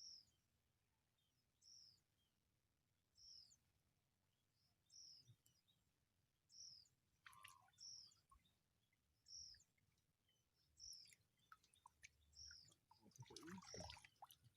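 A bird repeating a short, high, slightly falling call about every second and a half, faintly. There is a single sharp click about halfway through.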